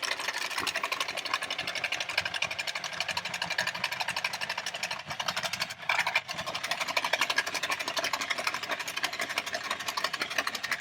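Battery-powered toy remote-control bulldozer running, its small electric motor and plastic gearbox whirring with a rapid, even clicking. A brief louder knock comes about six seconds in.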